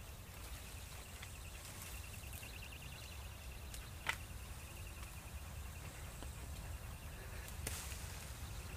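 Faint outdoor ambience: a steady low rumble, with a sharp click about four seconds in and a weaker one near the end.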